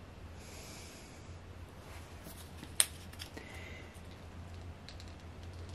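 Quiet handling sounds: fingers rubbing and pressing on a rough cracked concrete statue and working a small squeeze tube into the cracks, with a few light ticks and one sharp click a little under three seconds in.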